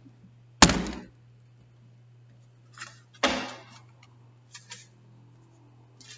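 Handling noise from the recording device being moved and knocked: two sharp thunks about two and a half seconds apart, the first the louder, with a few light clicks after them, over a steady low hum.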